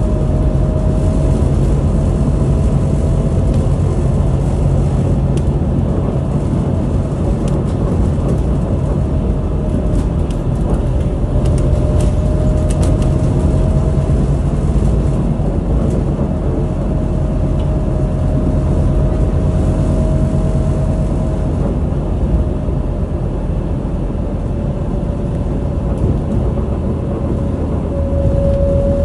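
Cabin noise inside a Scania Citywide LFA articulated city bus on the move: a steady low engine and road rumble with a thin whine that drifts slightly up and down in pitch, and a few faint ticks about a third of the way in.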